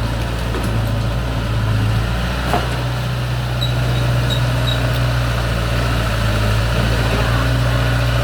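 Diesel engine of a Caterpillar E70B excavator running steadily. There is a single knock about two and a half seconds in, and four faint short high chirps a little after.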